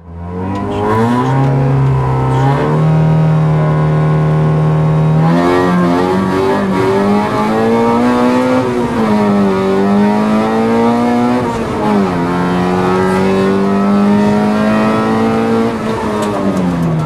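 Rally car engine heard from inside the cabin, held at steady high revs on the start line. About five seconds in it launches, and the engine note climbs and falls repeatedly as the car accelerates through the gears and slows for bends.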